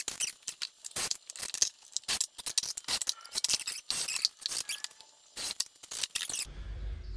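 Rapid, irregular clicks and rattles of screws and a cordless drill/driver being handled while the back boards of a pine chair are tacked in place. The clicking stops suddenly near the end, and a low steady hum takes over.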